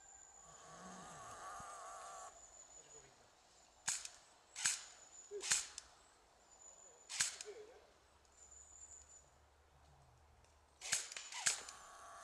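Airsoft guns firing single shots, sharp cracks a second or so apart, with a quick cluster of several shots near the end.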